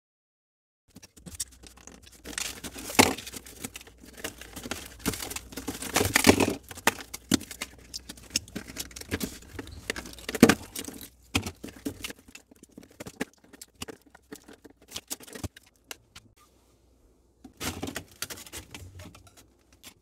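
Hands breaking and clearing ice off an iced-up freezer evaporator coil: irregular scraping, rustling and sharp clicks of ice and metal fins. The sounds start about a second in, thin out to a few clicks after about twelve seconds, and pick up again in a short flurry near the end. The ice build-up is blocking the airflow from the freezer down to the refrigerator section.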